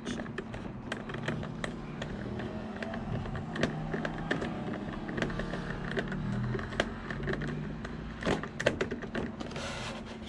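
Small screwdriver driving a tiny retaining screw into a metal wheel collar, with irregular light clicks and taps of the tool against the parts over a faint steady hum.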